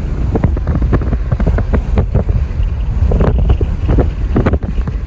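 Wind buffeting the microphone: a loud, steady low rumble with irregular crackles and pops.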